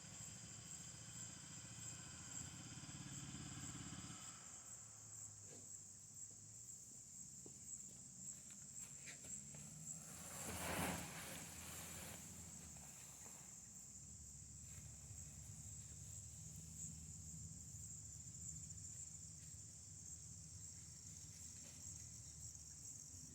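Insects trilling steadily in a high, even band. An engine runs for the first four seconds and then cuts off. A brief swell of noise rises and fades about eleven seconds in.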